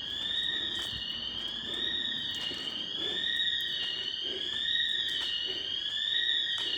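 Store alarm sounder wailing: a high tone that sweeps up and down about once a second, continuously.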